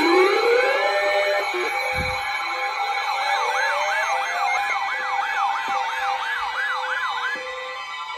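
Several emergency-vehicle sirens sounding together. A slow wail rises in pitch in the first second, then a fast yelp sweeps up and down about two and a half times a second from about three seconds in until past seven seconds, over steady held tones. The sirens fade somewhat toward the end.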